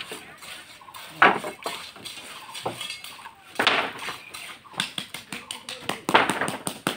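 Metal concrete pans and tools clanking and scraping against each other and the wet concrete, with sharp strikes about a second in, about three and a half seconds in, and again near the end.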